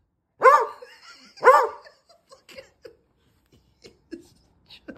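Dog barking twice, two sharp barks about a second apart, followed by a few faint soft sounds. These are demand barks at the owner for a ball that is being held back.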